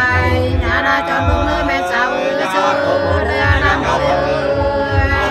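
Two women singing sli, the Nùng folk love-song duet, in long held notes that waver and slide between pitches.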